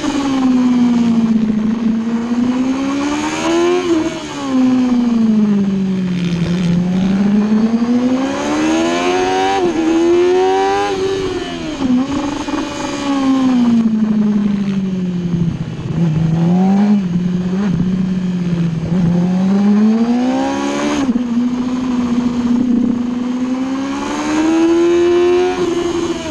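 Sport bike engine heard from on board at track speed, its pitch climbing under throttle and sinking off it as the bike goes through corners, with a few sudden jumps in pitch at gear changes, over a rush of wind noise.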